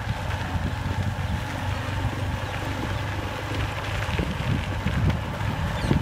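Wind buffeting the microphone as the camera moves: a low, unsteady rumble.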